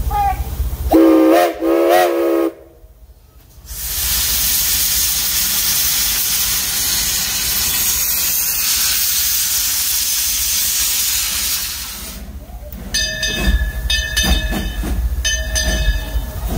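Steam locomotive No. 14 of the Frisco Silver Dollar Line gives two short whistle toots. After a brief pause, a long steady hiss of steam blows out around its cylinders. Near the end come regular chuffs with a ringing metallic tone as the engine starts to pull away.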